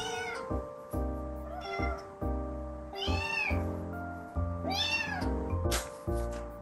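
Calico kitten meowing about four times, short arched calls roughly a second and a half apart.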